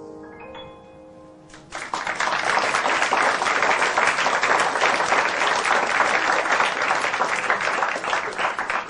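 The song's last notes fade out with a short rising run of notes, then a theatre audience breaks into loud, sustained applause about two seconds in.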